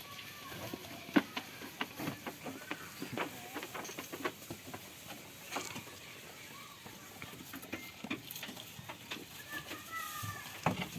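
Goats feeding and moving: irregular clicks and knocks, with a few faint high chirping calls near the end.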